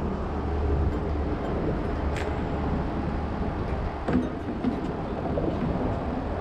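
Wind rumbling and buffeting on the microphone, with a sharp click about two seconds in and a knock about four seconds in.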